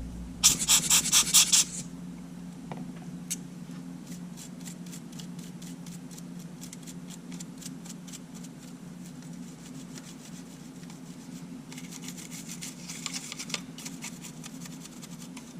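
Toothbrush scrubbing sand and grit out of a Sony A7 camera's body parts in quick strokes. A loud burst of brushing comes about half a second in, fainter brushing runs through the middle, and louder brushing returns near the end.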